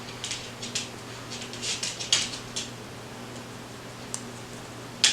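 Cloth mask fabric being handled and put on: irregular soft rustles and small clicks, with one sharp click near the end.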